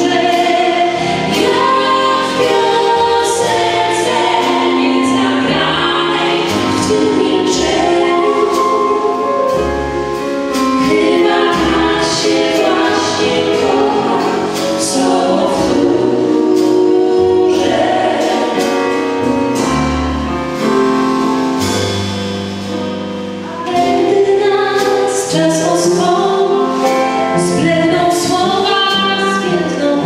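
Three women singing together into microphones over a live band of piano, double bass and drum kit, with cymbals and drums struck throughout.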